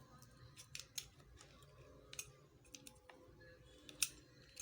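Faint, scattered light clicks and scratches of a small tool prying at a phone's swollen battery to release it from its adhesive, with a sharper click about four seconds in.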